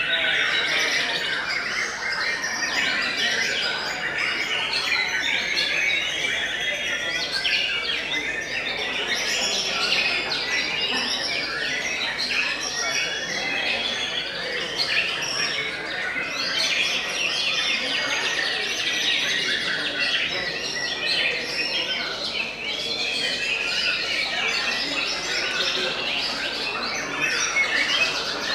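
White-rumped shamas (murai batu) singing without pause: a dense, unbroken run of overlapping whistled and trilled phrases.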